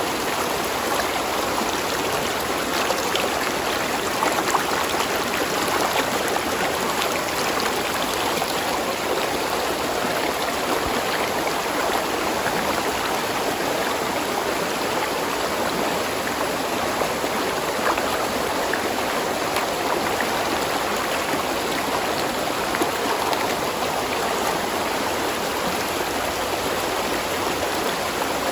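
Spring-fed stream running steadily over rocks, a continuous rush of water with small splashes and gurgles.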